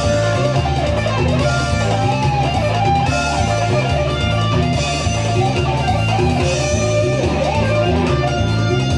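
Loud electric guitar music: a lead line with bending, wavering notes over a repeating bass line.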